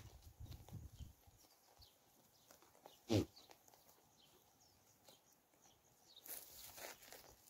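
Sheep and goats grazing: faint tearing and crunching of grass as they crop and chew, with one brief sharp sound about three seconds in and a rustle of grass near the end.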